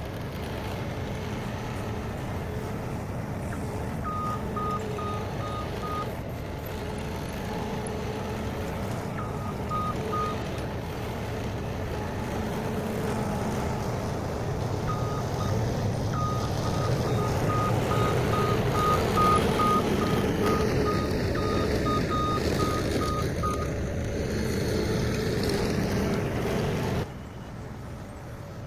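Skid steer engine running under work, with its reversing alarm beeping in three runs of evenly spaced beeps as the machine backs up. The engine sound drops off suddenly near the end.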